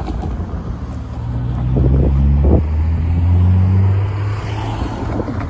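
Wind buffeting the microphone while a motor vehicle goes by. Its low engine hum swells for a few seconds and then fades, with a couple of light knocks in the middle.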